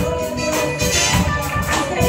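A live church band playing an upbeat Spanish-language worship chorus: women singing over electric guitar and keyboard, with a steady jingling percussion beat.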